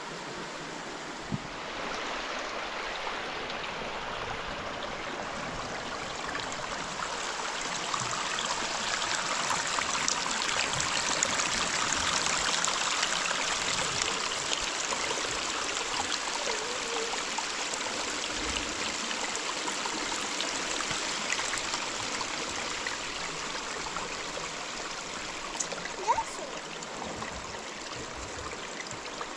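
Steady rush of running water that swells a couple of seconds in, is loudest around the middle and eases slightly toward the end, with a couple of faint knocks near the end.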